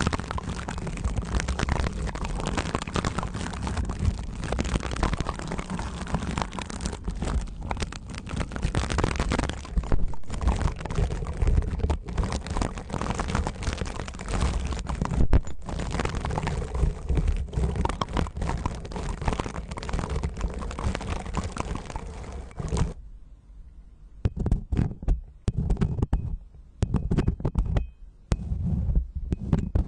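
Tinsel pipe cleaner rubbed and scraped right against the ear of a binaural microphone, a dense crackling scratch with a rumble from the contact. About 23 seconds in it gives way to separate short scratchy strokes from a thin stick poking into the microphone's ear.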